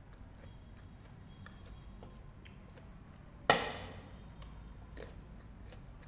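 Fresh fruit being eaten up close: faint small mouth clicks, then one loud, sharp crunch of a bite about three and a half seconds in.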